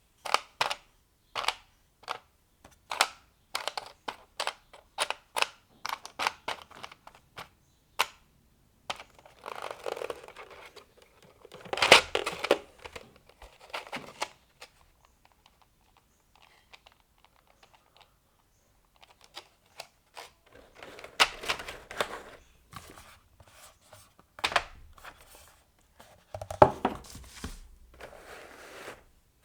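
Plastic keycaps and their packaging being handled. There is a quick run of sharp plastic clicks over the first several seconds, then rustling and crinkling of wrapping, a quiet pause, and more rustling with a few knocks near the end.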